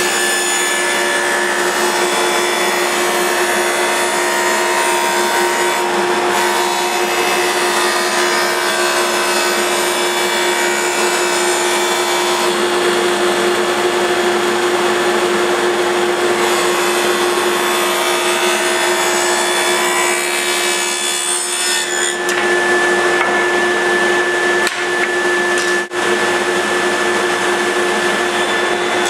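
A woodworking power tool running steadily and cutting wood, a continuous even machine noise with a steady hum. There is a brief dip about two-thirds of the way through, and the cut carries on after it.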